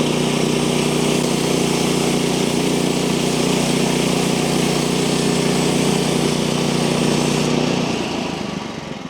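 Manual bandsaw mill running steadily, its small engine's tone under the hiss of the band blade cutting a board from an eastern red cedar log. About seven and a half seconds in the cutting hiss thins out, and a moment later the engine drops away as the cut ends.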